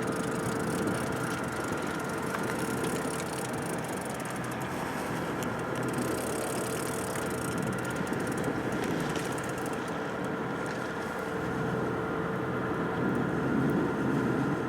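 Boat engine running steadily, an even hum with constant tones and no change in speed.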